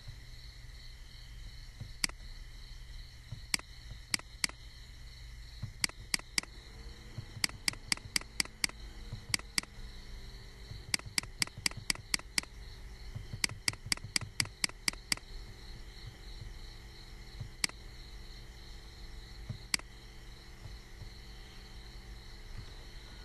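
Computer mouse button clicking: single clicks and quick runs of several clicks, over a steady faint hum and hiss.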